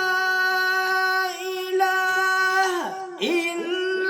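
Melodic Qur'an recitation: a single reciter's voice holds one long, steady high note with a brief dip and break in pitch about three seconds in, then takes up the held note again.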